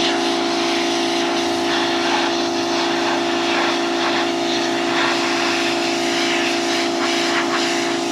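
Pressure washer running and spraying: a steady hiss of water over a constant hum from the machine.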